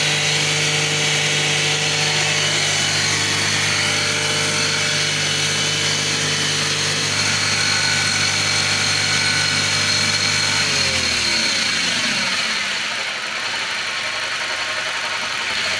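MG6's 1.5-litre turbocharged four-cylinder 15E4E petrol engine running steadily after a no-start fault, a little noisy with its air cleaner not yet refitted. About eleven seconds in, its speed drops and the pitch falls away.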